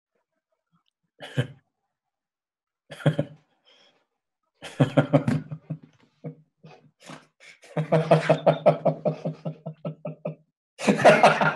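A man laughing: a few short bursts of breath at first, then long runs of rapid laughter from about the middle on.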